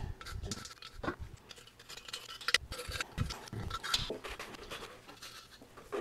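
Gloved hands handling and scraping the metal parts of a diesel air heater: an irregular run of small scratches, clicks and knocks, with one sharper click about two and a half seconds in, as old gasket adhesive is cleaned off a mating surface.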